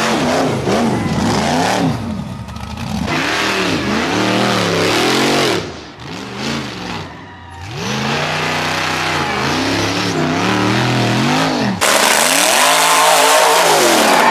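Rock bouncer buggy engines revving hard under full throttle, the pitch climbing and falling again about once a second. The sound changes abruptly about halfway and again near the end.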